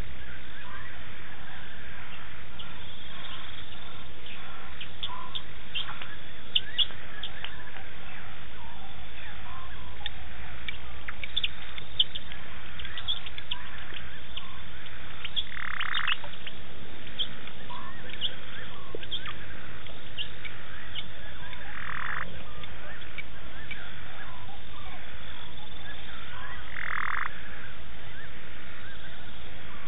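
A chorus of frogs calling: many short clicking chirps, with a longer, noisier call four times, several seconds apart.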